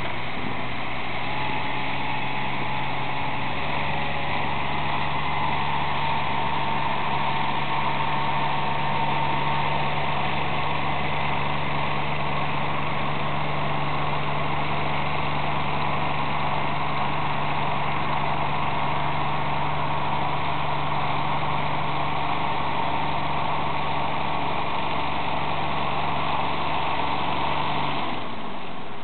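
Small river ferry's engine running steadily during the crossing: a low hum with a faint whine above it. It strengthens a few seconds in and cuts off near the end as the ferry reaches the far landing.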